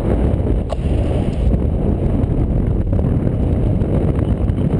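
Wind rushing over the microphone of a paraglider in flight: a loud, steady low rumble of buffeting air.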